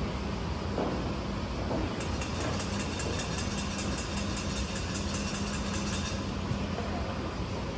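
Construction site noise: an engine running steadily with a low hum, and for a few seconds in the middle a fast run of short ticks, about five a second.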